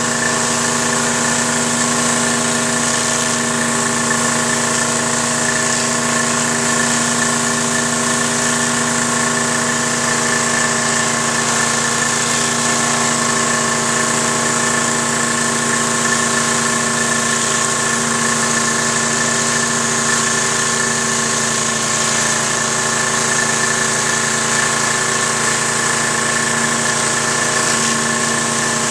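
Troy-Bilt 2700 PSI gas pressure washer running steadily at constant speed while driving a rotating surface cleaner over concrete, its engine hum under a continuous hiss of spraying water.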